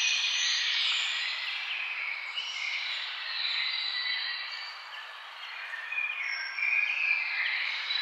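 A chorus of many birds singing and calling at once, their overlapping high whistled notes over a steady hiss of outdoor background noise. The chorus eases a little around the middle and swells again near the end.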